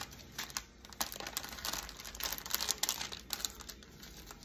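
Small clear plastic zip bags of diamond-painting drills crinkling and rustling as they are handled and sorted. The crackling is irregular and thins out near the end.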